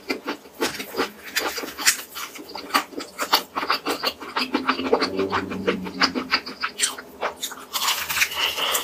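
Close-miked chewing of crispy breaded fried chicken: many irregular sharp crackles of the crust being crunched, with a fresh bite near the end.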